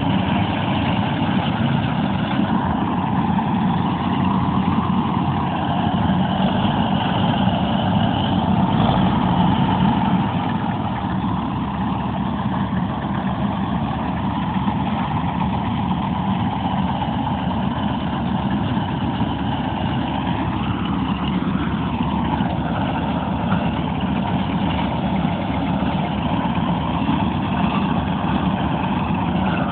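Engine of a small farm machine running steadily, easing slightly in level about ten seconds in.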